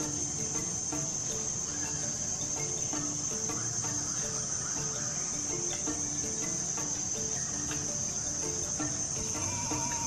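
Steady, high-pitched drone of forest insects, unbroken throughout, with faint short low notes repeating beneath it.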